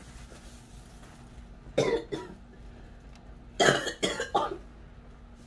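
A woman gagging and coughing into a plastic bag, retching on a mouthful of food she can't swallow. There are two harsh bursts, one about two seconds in and a louder, longer one at about three and a half seconds.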